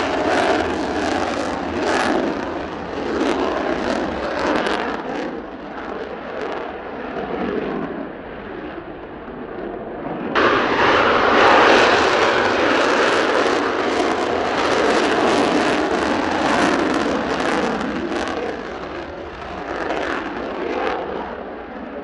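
Mitsubishi F-2A fighter's General Electric F110 turbofan running at full afterburner on the takeoff roll: a loud, steady jet rush. It eases off a little midway, then jumps suddenly louder about ten seconds in. Wind noise on the microphone runs under it.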